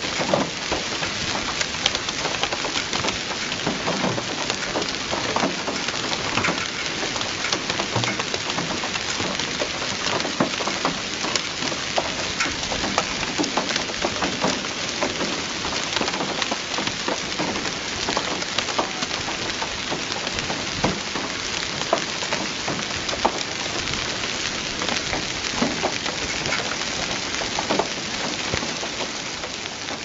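Heavy rain pouring onto wet stone paving: a dense, steady hiss filled with many sharp ticks of drops striking.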